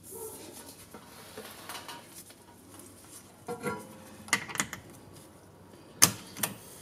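Compressed-air hose fitting being handled and snapped onto a PVC boost-leak tester: rattling and several sharp clicks, the loudest about six seconds in. A faint steady hiss of air starts just after it.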